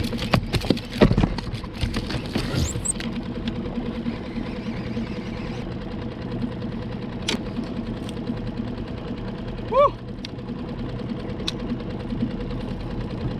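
Small boat outboard motor running steadily at trolling speed. A cluster of knocks and clatter comes in the first three seconds, and a brief rising chirp about ten seconds in.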